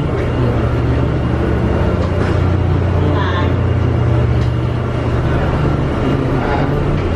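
Steady low drone of the Canal Street–Algiers ferry's roughly 900-horsepower engines, heard inside the enclosed passenger cabin. Faint voices come through about three seconds in and again near the end.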